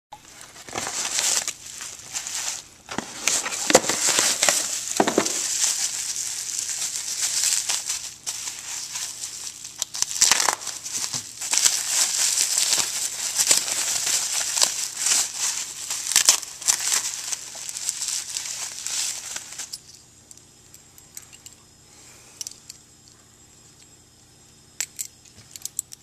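Plastic bubble wrap crinkling and crackling as it is handled and unwrapped by hand, stopping about twenty seconds in; a few light clicks follow near the end.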